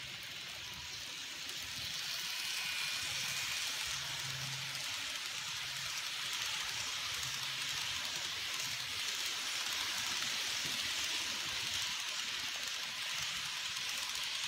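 N-scale model passenger train rolling on its track: a steady, even hiss of small metal wheels on rail with a faint motor hum, growing louder about two seconds in as the cars come close.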